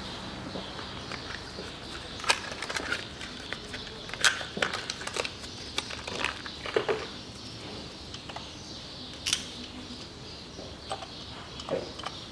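Irregular metallic clicks and taps of a spark plug socket on an extension bar being handled and turned in the plug wells as new spark plugs are screwed in, the sharpest about two, four and nine seconds in.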